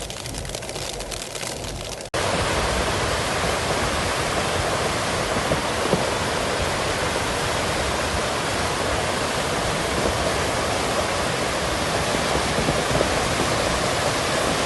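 Ticking drops over a hiss, then about two seconds in a cut to a loud, steady rush of water in heavy rain.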